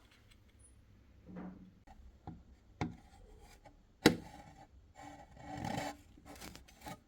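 Hands working on a cassette deck mechanism during a belt replacement: scattered small clicks and rubs, a sharp knock about four seconds in, then a stretch of scraping and rubbing.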